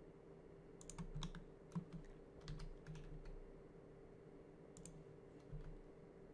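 Faint computer keyboard keystrokes and clicks, about a dozen scattered taps over a low, steady hum.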